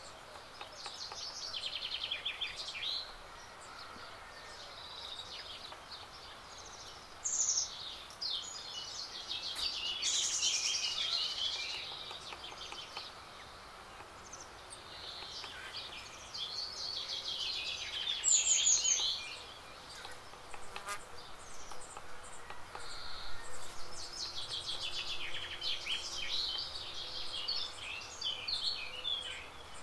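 Songbirds singing: several high, rapid warbling song phrases of about two to four seconds each, separated by short pauses, over a faint steady outdoor hiss.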